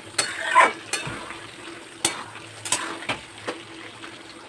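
Prawns and bottle gourd being stirred in a pan: a utensil knocks and scrapes against the pan every half second to a second, with the loudest scrape about half a second in, over a soft sizzle of the cooking.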